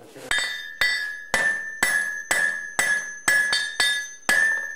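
Hammer striking an anvil in a steady rhythm, about two blows a second with an occasional extra quick tap, each blow leaving a bright metallic ring that dies away before the next.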